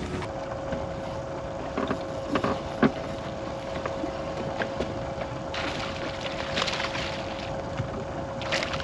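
Steady electric hum of a bass boat's trolling motor over wind and water noise on the deck, with a few light knocks in the first three seconds.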